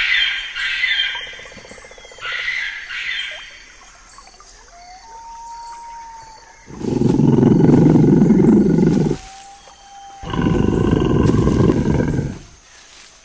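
Two long tiger roars, each about two seconds, the second starting about a second after the first ends. High wailing calls are heard in the first few seconds.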